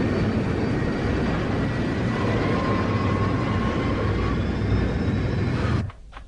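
Cartoon sound effect of spaceship engines: a steady, loud rumbling roar with faint whining tones over it, cutting off suddenly near the end.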